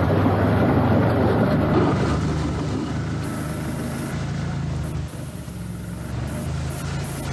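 CFMoto CForce 1000 ATV's V-twin engine running, louder and rougher for the first two seconds or so, then easing to a lower, steadier note.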